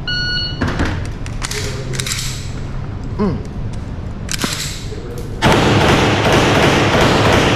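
Shot timer's electronic start beep, held for about half a second, followed by a scatter of sharp clicks and knocks, typical of a pistol being picked up off a table and loaded for an unloaded-table start. From about five and a half seconds a louder, continuous rushing noise takes over.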